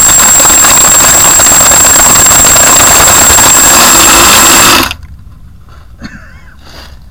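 Small multirotor drone's motors and propellers running, loud and harsh on the onboard camera's microphone with a steady high whine, after coming in hot and landing. The noise cuts off suddenly about five seconds in as the motors stop.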